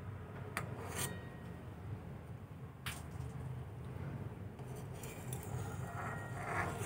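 Steel ladle clinking and scraping against an aluminium pan while skimming foam off boiling masoor dal: a few sharp clinks in the first three seconds and a longer scrape near the end, over a steady low hum.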